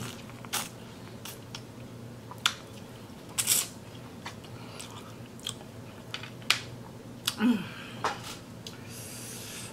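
A person chewing a mouthful of spicy seafood boil close to the microphone, with wet mouth smacks and clicks roughly once a second.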